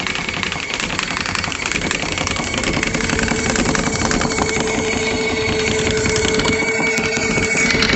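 Small portable washing machine running, its motor giving a continuous busy mechanical noise; a steady hum comes in about three seconds in.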